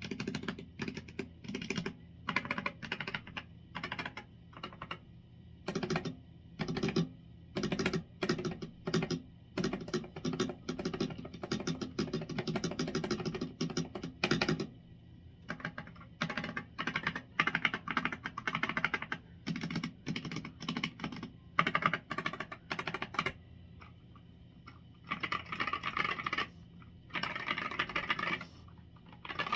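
Typing on a Ractous RTK61BP mechanical keyboard with Gateron optical red linear switches, a steel plate, a plastic case and stock keycaps: runs of quick key clacks, broken by a couple of brief pauses.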